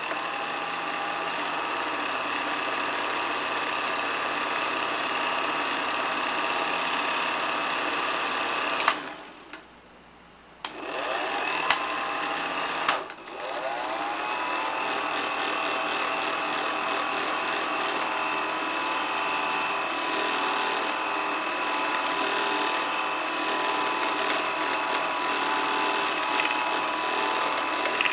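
8mm film projector running with a steady mechanical whirring clatter. It cuts out with a click about nine seconds in, comes back after a short pause, and its motor whine rises back up to speed around thirteen seconds in.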